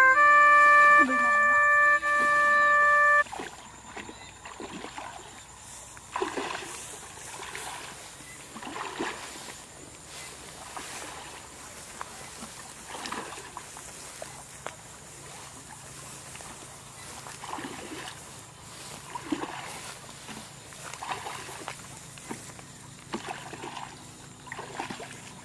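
A short stretch of music with held electronic chords cuts off about three seconds in. Then come quieter, irregular soft splashes and sloshing of someone wading through shallow muddy water.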